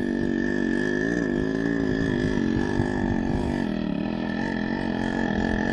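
Yamaha RX 100's two-stroke single-cylinder engine pulling the motorcycle up a steep hill under load, its note holding steady and wavering slightly in pitch, with a thin high whine running above it.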